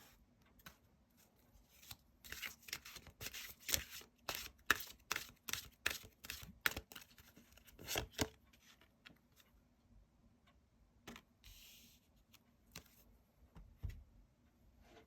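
Tarot cards being shuffled and handled: a quick run of papery swishes and snaps from about two seconds in to about nine seconds, then a few single ones.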